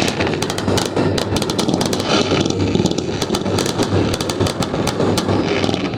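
Fireworks finale: many rapid, irregular crackling pops and sharp cracks over a continuous low rumble of bursting shells.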